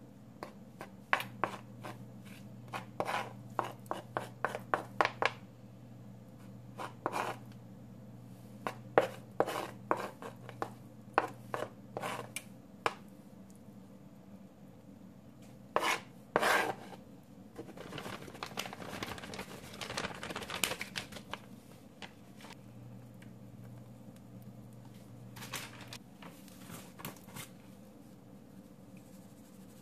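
Wooden spoon knocking and scraping diced tomatoes off a plastic cutting board into a frying pan and spreading them over the omelette: a run of sharp taps, two louder knocks about halfway through, then a few seconds of steady scraping.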